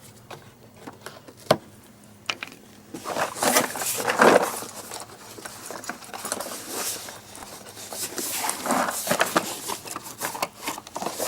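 A cardboard advent-calendar door being popped open and handled: a few sharp clicks, then from about three seconds in, irregular rustling and crinkling.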